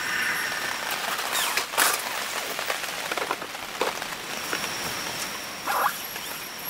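Steady rain falling, an even hiss with a thin steady high tone above it. Two sharp knocks, about two seconds and six seconds in, from a plastic storage case being handled.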